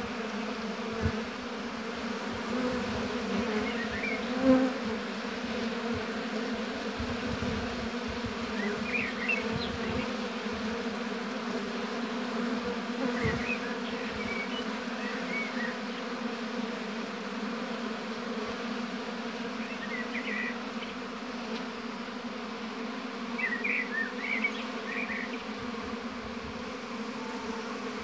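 Honeybees buzzing around their hives: a steady, dense hum of many bees, with faint short high chirps here and there.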